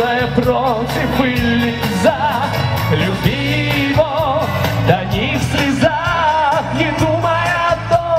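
A man singing a pop song into a microphone over loud backing music.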